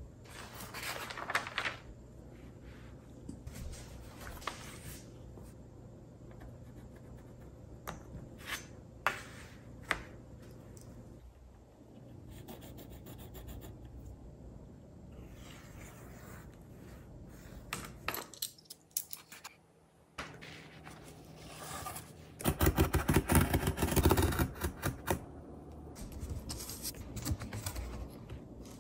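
Pencil scratching on paper and on corrugated cardboard against a ruler, with scattered light taps and clicks of tools handled on the table. About two-thirds of the way through comes the loudest sound, a run of rapid scraping on the cardboard lasting about three seconds.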